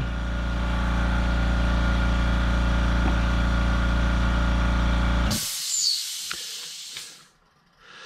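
A machine runs with a steady, deep hum and stops suddenly about five seconds in. A short hiss follows, then a few faint clicks.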